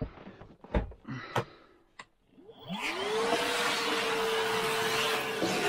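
Vacuum cleaner switched on about two and a half seconds in: its motor whine rises in pitch and settles into a steady run over a rush of suction. Before it starts there are a few knocks and clicks as the hose is handled.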